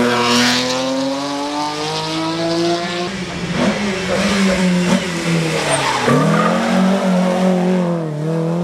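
Rally car engine running hard on a special stage, its pitch falling about three seconds in, then dipping and climbing again around six seconds in as the driver comes off the throttle and gets back on it.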